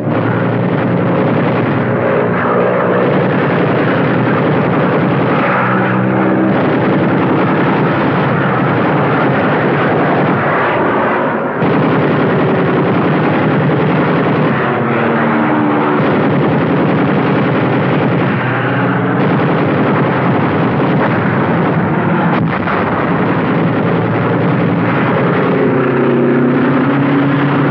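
Military aircraft engines running loud and continuous, their pitch bending up and down several times as planes pass.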